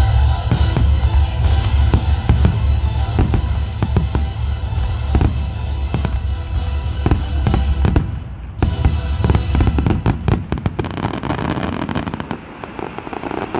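Firework display with shells bursting in a quick run of sharp bangs, thickening into dense crackling about two-thirds of the way through, with music playing underneath.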